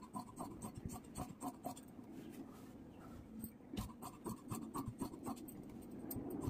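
Fabric scissors cutting through a length of suit cloth: a run of quick snips that thins out for a moment around the middle, then picks up again.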